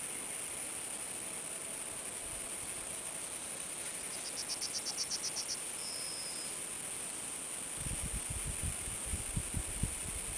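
Insects stridulating in a summer evening field: a steady high-pitched buzz, broken by a quick rattling trill of about a dozen pulses about four seconds in and a short high note just after. Low rumbling on the microphone near the end.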